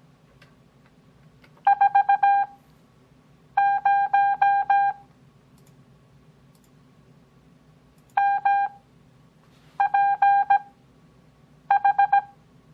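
Morse code (CW) practice tone, a single beep pitch near 800 Hz, keyed in dots and dashes at a 17 wpm character speed with long Farnsworth gaps for 6 wpm overall. Five characters are sent, one to three seconds apart.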